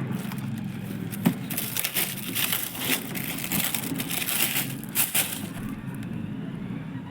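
Sky shot firework going off: a rapid run of sharp cracks and crackling, densest in the middle, with single louder bangs about a second in and again around five seconds.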